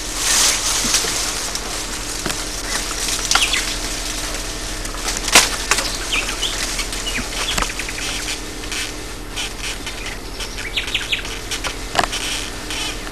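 Leaves and branches rustling and shaking as a person climbs through a tree, with a few sharp cracks, the loudest about five seconds in. Birds chirp faintly now and then.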